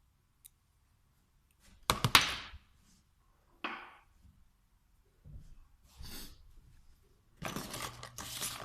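Small metal parts of a VE diesel injection pump being handled on a workbench: a sharp clatter about two seconds in, a single knock, then rustling and scraping near the end.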